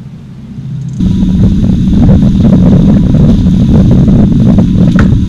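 Outboard motor running with the boat under way, with wind on the microphone and water rushing past the hull; it comes in abruptly about a second in, loud and steady with a low hum.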